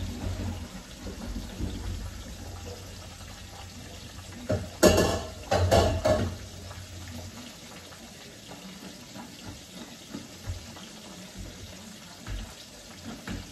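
Water running and splashing in a kitchen sink as boiled potatoes are drained in a colander, with two louder bursts of splashing and clatter about five and six seconds in. The rush of water dies away after about seven seconds.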